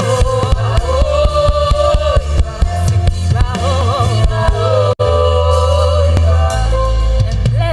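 Live gospel praise music: voices singing a wavering melody over a band with a strong bass line and percussion. The sound drops out for an instant about five seconds in.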